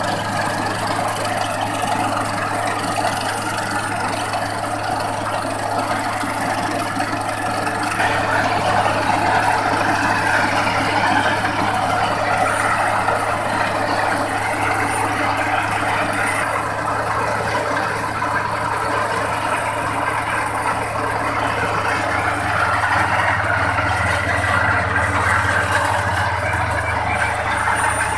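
Skyroad tracked rice combine harvester running: a steady engine drone with the noise of its machinery, a little louder from about eight seconds in.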